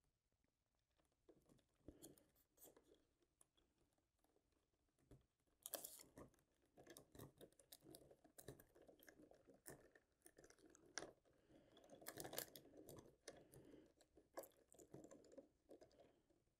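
Faint crunching and clicking as a small screwdriver turns coarse-threaded screws into plastic receivers on a foam RC-plane cowling, with the cowling being handled. It grows busier about six seconds in.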